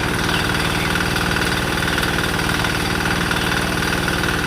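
Small engine driving a water pump, running steadily at a constant speed with an even firing beat.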